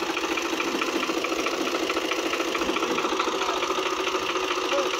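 New Holland TT 55 tractor's diesel engine running steadily, with a rapid even knocking beat.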